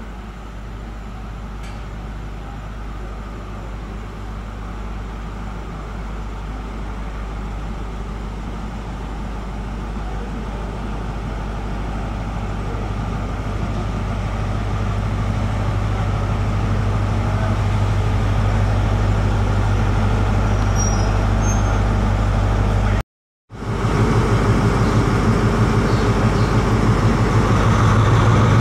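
Class 43 HST power car diesel engines running with a steady low drone as the train draws slowly along the platform, growing steadily louder as the leading power car approaches. The sound cuts out for a moment about three-quarters of the way through.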